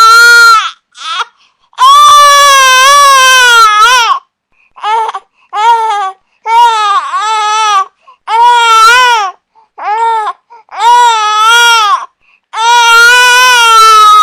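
Infant crying: a string of loud wailing cries, some held for a couple of seconds and others short and clipped, each with a wavering, bending pitch and broken off by brief silent gaps.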